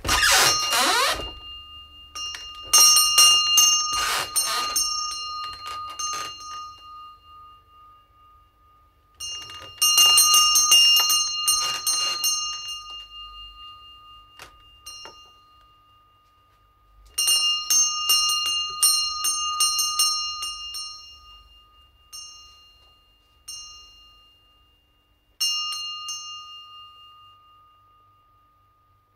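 A door hinge gives a short rising squeak, then a shop doorbell jangles and rings out. The bell is set ringing again in about four bouts, with a few lighter strikes between them, each ring dying away over several seconds.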